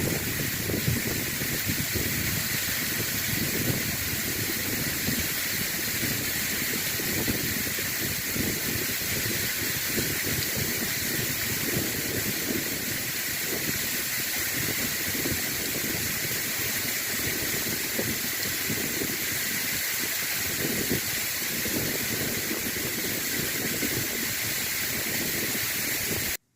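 Waterfall rushing: a loud, steady roar of falling water that cuts off suddenly near the end.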